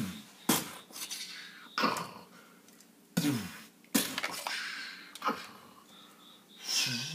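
A man making vocal battle sound effects for fighting toy robots: about six short, noisy blasts and whooshes made with the mouth, one with a falling voiced tone.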